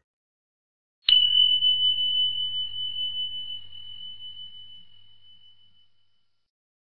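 A single high bell-like chime sound effect, struck about a second in and ringing out on one steady pitch, slowly fading away over about five seconds.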